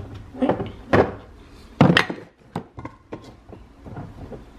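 Kitchen things being handled and put away on a granite countertop: a series of separate knocks and clatters, the loudest about two seconds in, as a plastic-lidded instant coffee jar is capped and moved.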